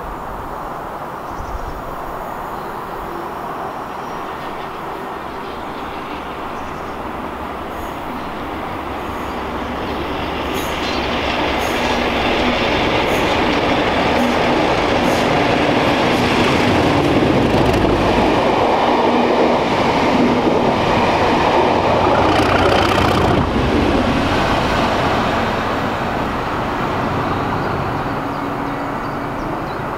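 Class 37 diesel locomotives' English Electric V12 engines working the test train past: the engine note builds from about a third of the way in, is loudest in the middle as the train passes below, then fades, with clicking from the wheels on the rails.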